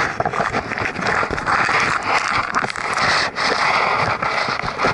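Loud, close rustling and scraping with small crackles, the sound of the camera being rubbed and shifted right against its microphone.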